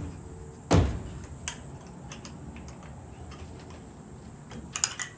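A loud thump about a second in, then a few lighter knocks and clicks near the end, from the wooden frame and doors of a pigeon loft being handled.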